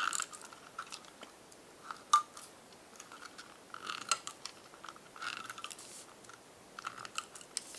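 Handheld double-sided tape runner drawn across card stock in several short strokes, its winding mechanism clicking and rattling, the sharpest click about two seconds in.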